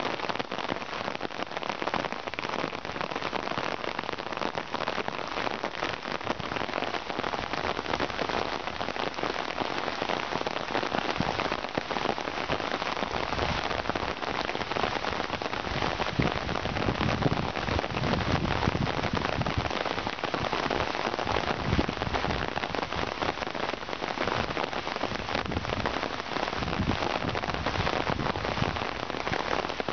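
Steady rain falling on a fabric umbrella overhead, a dense patter of drops throughout. From about halfway through, a low rumble comes and goes underneath.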